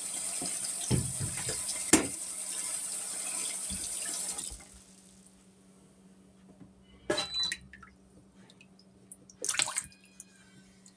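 Water running into the dishwasher's tub, a steady hiss that stops about four and a half seconds in. After that only a faint steady hum, with two brief knocks or rustles later on.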